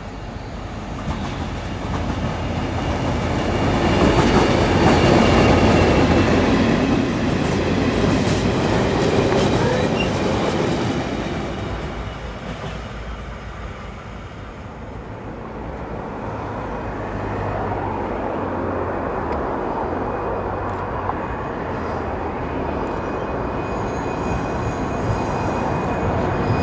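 An Irish Rail 071 Class diesel locomotive (EMD two-stroke V12) hauls an engineering train past, its engine and wheel noise swelling to a peak about five seconds in and fading by about twelve seconds. A second 071 Class locomotive with wagons is then heard drawing near on curved track, its engine running steadily, with high wheel squeal near the end.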